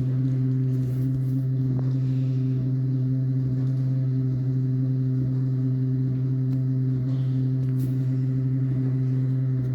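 Bosch dishwasher giving off a loud, steady hum with several higher overtones, an unusual noise for the machine.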